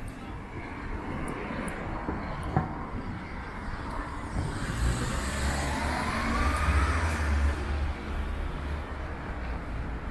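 A car passing on a city street over steady traffic noise, its low rumble swelling to a peak about five to eight seconds in with a faint rising whine. A single sharp click about two and a half seconds in.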